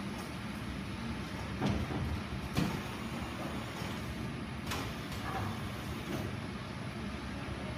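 AVC BP-700 bundle shrink wrapper and KT-1200 shrink tunnel running with a steady mechanical hum. A few sharp knocks and clacks come from the machine's mechanism and the boxes as they are handled: two louder ones about two seconds in and softer ones about five seconds in.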